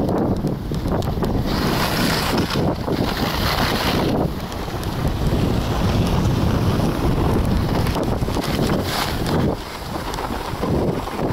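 Wind buffeting the microphone of a camera carried by a moving snowboarder, with the hiss of the snowboard sliding and scraping over packed snow. The hiss grows louder and brighter from about 1.5 to 4 seconds in and again briefly around 9 seconds, as the board turns on its edge.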